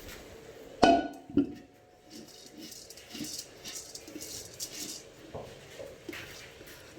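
Metal cooking pot and utensils clanking: two sharp clangs about a second in, the first ringing on briefly, followed by lighter clinks and taps.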